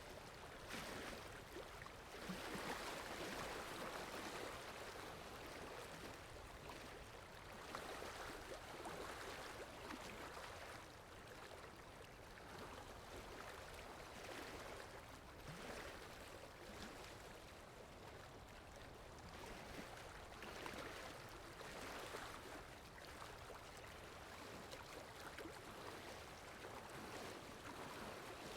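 Sea water washing and splashing in a faint, steady rush that swells every few seconds, like waves or a wake running past.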